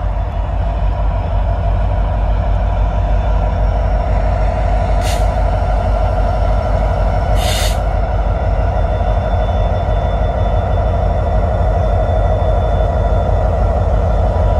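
Diesel freight locomotives approaching and passing close by, their engines giving a loud, steady drone over a deep rumble. Two short hisses of air are released about five and seven and a half seconds in.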